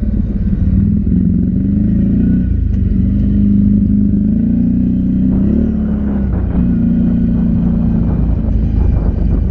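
ATV engine running under way, its pitch rising and falling with the throttle, with a short dip about six seconds in.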